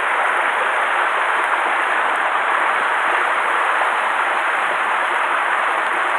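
Mountain stream rushing steadily, water spilling over a small cascade into the pool.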